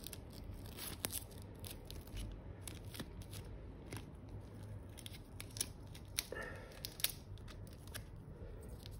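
Clear adhesive tape being pulled and wrapped around a paper-towel-wrapped stack of battery electrodes: faint scattered crackles and clicks of tape and paper.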